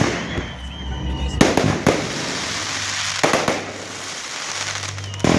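Fireworks display: sharp bangs of shells bursting every one to two seconds, with crackling between them and a thin whistle lasting about a second near the start.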